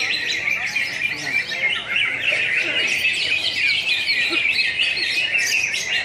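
Many caged cucak hijau (greater green leafbirds) singing at once in a song contest: a dense, continuous chorus of overlapping chirps, whistles and warbles.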